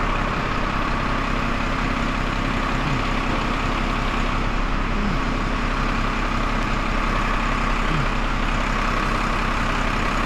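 Engine of a truck carrying a hydraulic crane, idling steadily.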